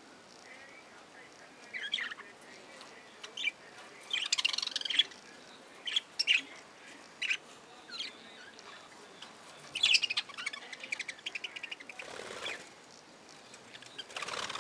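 A flock of budgerigars chirping and chattering in short, scattered calls, with denser bursts of warbling chatter. Near the end comes a brief flurry of wing flapping.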